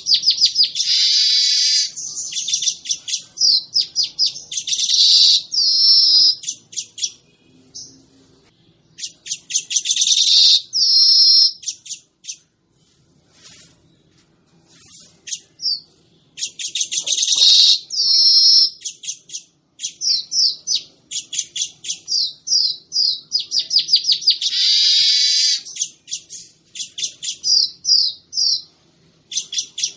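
Manyar weaver bird song: phrases of rapid high chattering notes running into long wheezy, buzzy passages, repeated with short pauses between them.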